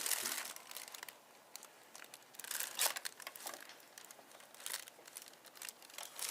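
Plastic crinkling and rustling in irregular short bursts, with light knocks, as a printer cable is handled and pushed at the printer's socket; the loudest rustle comes a little before the middle.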